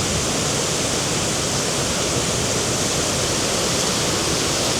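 Waterfall's steady, loud rush of falling water.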